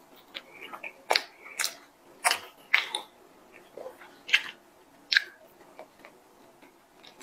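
Mouth sounds of a person biting and chewing soft chocolate-glazed doughnut and cream-filled pastry: about eight sharp, irregular smacks and clicks.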